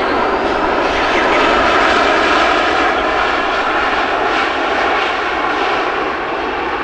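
Airliner engines running loud, a dense rushing noise with faint steady whine tones through it, loudest about two seconds in and easing slightly toward the end.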